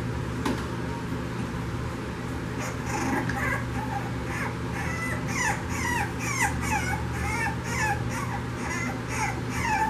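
French Bulldog puppy whimpering: a fast run of short, high whines that starts about three seconds in and keeps going.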